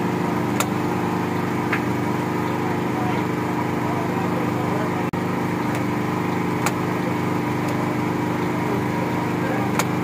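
Toyota Corolla's engine idling steadily, with several sharp clicks of the power door lock actuators locking and unlocking as the remote key fob is pressed: the central locking is responding again after a broken lock/unlock wire was joined.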